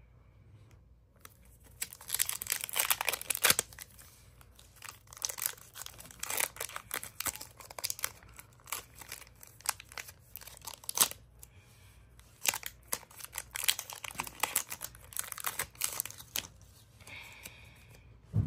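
Foil wrapper of a Pokémon TCG Lost Origin booster pack being torn open and crinkled, in quick runs of sharp crackles and rips.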